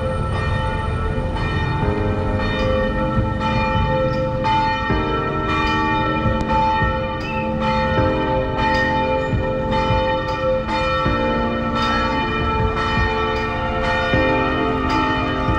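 Church bells ringing in a quick, even run of strikes, the tones ringing on and overlapping, the set of notes shifting every few seconds, over a steady low rumble.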